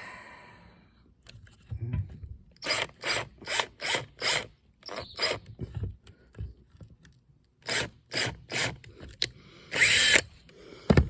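Cordless drill driving a self-tapping screw in short trigger pulses, several quick bursts in groups, with a longer run near the end.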